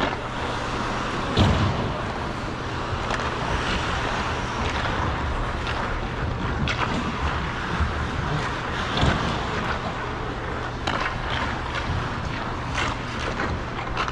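Ice skate blades gliding and scraping on rink ice, with a sharper scrape every second or two and the loudest about a second and a half in, over a steady low hum.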